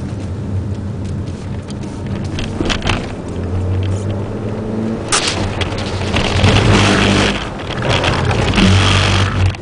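Ford Puma 1.7 VCT four-cylinder engine running steadily, heard from inside the cabin. From about five seconds in, a loud hiss of water spraying over the windscreen and body builds over the engine and stays loudest until near the end.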